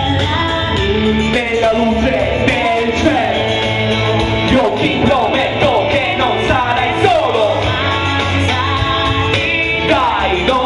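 A man singing into a handheld microphone, amplified through PA speakers, over backing music.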